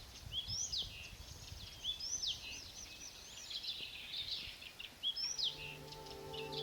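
A songbird singing the same short phrase three times, each one opening with a quick rising-and-falling whistle and trailing off in fast warbles. Soft held music tones come in near the end.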